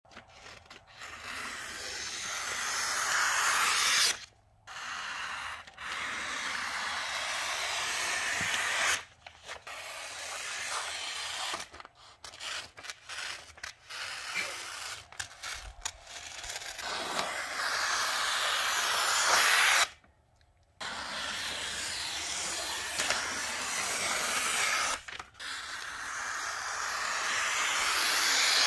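Scissors gliding through wrapping paper in long cuts: a hissing slide that grows louder over several seconds and stops abruptly at the end of each stroke. There are about five long cuts, with a stretch of shorter, broken strokes in the middle.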